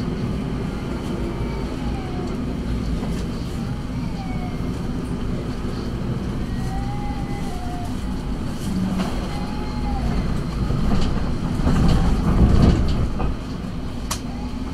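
Steady low rumble of a moving tram heard from inside the car, with faint wavering tones now and then. It grows louder for a stretch about ten to thirteen seconds in.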